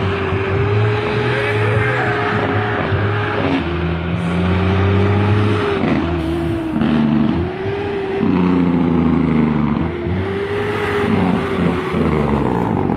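Heavy diesel truck engine working hard, loud and close, its revs climbing and falling back several times.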